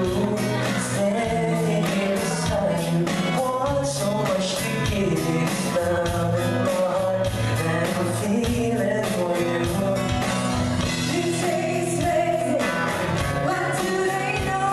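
Live cover band playing a song: singing at the microphone over guitar, a bass line and a drum kit keeping a steady beat.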